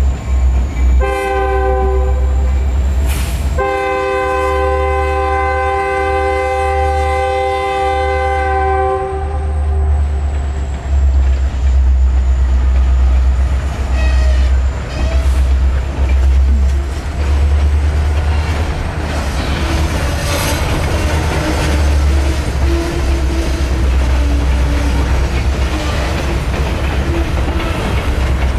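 Canadian National diesel freight locomotive sounding its horn at a road crossing: a short blast about a second in, then a long blast of about six seconds that fades away. Then the freight cars roll past with a steady low rumble and wheels clicking over the rail joints.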